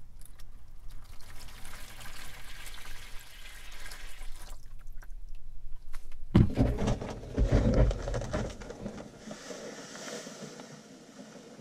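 Water poured from a jug into a plastic tub, a splashing stream for about four seconds, filling an electrolysis bath. After a short pause come several loud knocks and bumps of handling, then a soft high rustle near the end as a bag of table salt is handled.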